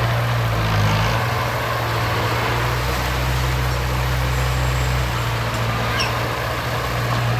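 Engine of a heavy vehicle running with a steady low hum, its pitch shifting slightly a few times.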